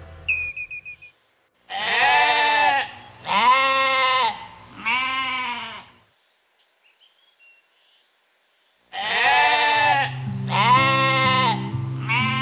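Goats bleating: three long wavering bleats, a pause of about three seconds, then three more. Soft background music comes in under the second group.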